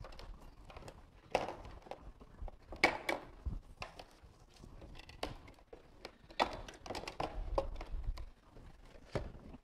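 Gear being handled and set down on a tabletop: scattered light knocks and clicks with some rustling.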